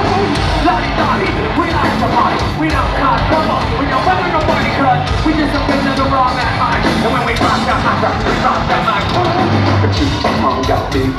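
A nu-metal band playing loud live music through a concert PA, with drums, bass and guitars, recorded from within the crowd.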